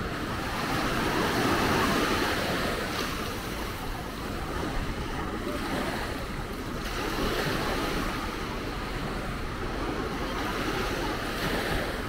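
Sea waves breaking and washing up on a sandy beach, swelling and easing, with wind rumbling on the microphone.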